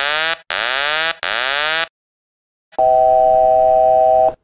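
Boeing 737 cockpit warnings. First the autopilot disconnect wailer: rising wails repeating about every three-quarters of a second, stopping about two seconds in, signalling that the autopilot has disengaged. After a short pause comes the altitude alert, one steady chord-like tone held about a second and a half, signalling that the aircraft is nearing the altitude selected on the autopilot.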